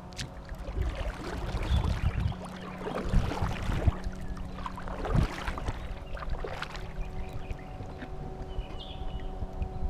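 Kayak paddling: the double-bladed paddle dipping and splashing into the river in uneven strokes, water dripping off the blades. A faint steady hum runs underneath.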